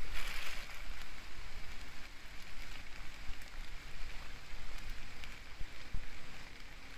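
Steady rain falling on wet ground, an even hiss with a few sharp drip-like ticks near the end.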